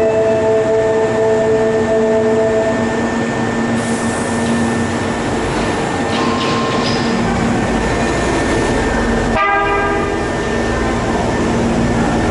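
Hankyu 3300-series commuter train in an underground station: at first it stands with a steady equipment hum, then from about five seconds in it starts to pull away and a low rumble builds.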